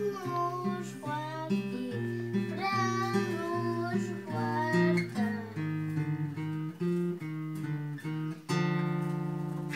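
Acoustic guitar picked slowly under a singing voice for the first half of a lullaby, then the guitar alone, with picked notes and a fuller strummed chord near the end.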